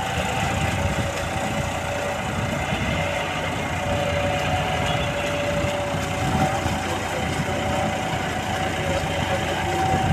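John Deere 5210 tractor's diesel engine running steadily, with a faint steady whine over it, as the tractor is driven through deep paddy-field mud on cage wheels while bogged down.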